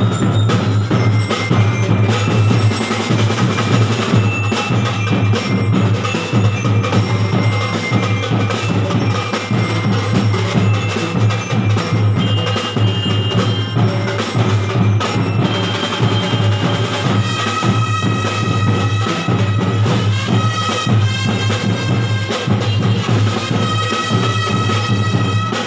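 Drum corps percussion music: mallet keyboards and percussion play dense, rapid struck notes with short ringing pitches over a steady low tone.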